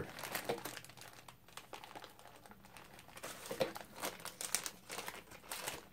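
A thin plastic packaging bag holding a power cable crinkles as it is handled and opened, in irregular crackles that are busiest past the middle.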